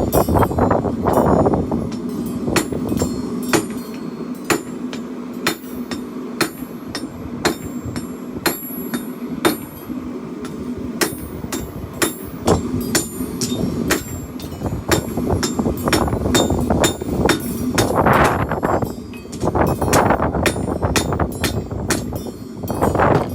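Hand hammer striking hot steel on an anvil, sharp ringing blows about two a second over a steady low hum, drawing out the chopper blade to lengthen it.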